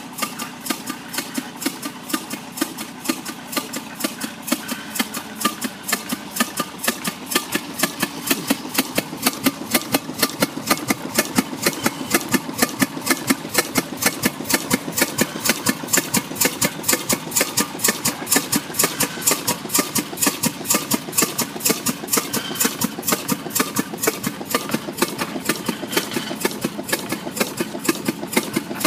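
A 1920s American Blower Co. vertical 7x7 double-acting steam engine running on a test run, turned by a flat belt from a tractor, its works knocking in a quick, even rhythm several times a second. The tractor's engine runs steadily underneath.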